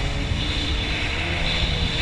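Personal watercraft (wave runner) engine running steadily while underway, with a constant rush of water and wind noise.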